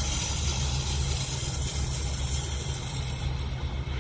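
Water rushing through the copper water main as it is turned back on and repressurized: a steady hiss over a low rumble, the upper part of the hiss easing a little about three seconds in.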